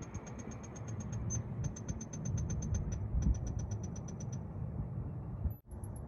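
Pink noise test signal playing through a Ford truck's speakers during the Kicker Key amplifier's automatic microphone tuning, with a rapid run of short high beeps over it. It drops out abruptly for an instant near the end.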